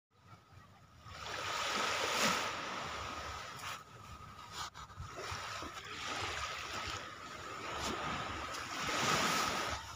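Small waves of a calm sea washing in on the shore, swelling loudest about two seconds in and again near the end, with a faint steady high tone underneath.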